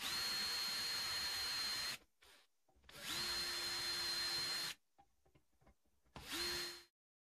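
Cordless drill boring into an aluminium plate in three runs: about two seconds, a pause, about two seconds more, then a short burst near the end. Each run carries a steady high whine.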